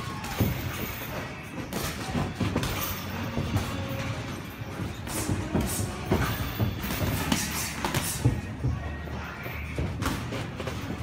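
Irregular thuds of boxing sparring: padded gloves landing punches and feet stepping on the ring canvas, with music playing in the background.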